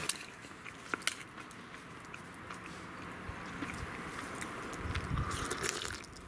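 A person chewing food. About a second in come two sharp knocks as an aluminium mess tin is set down on a wooden stump.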